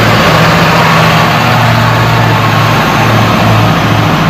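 Engine of a yellow conventional (long-nosed) school bus running steadily as the bus drives past, a loud, steady low drone.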